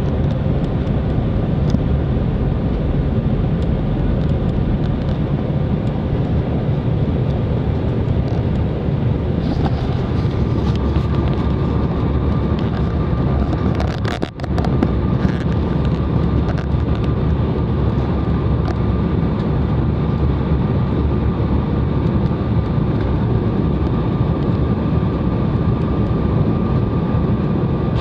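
Airliner cabin noise on approach: the steady low roar of the engines and airflow, heard from a passenger seat. A faint steady whine joins about ten seconds in, and the sound briefly drops out about halfway through.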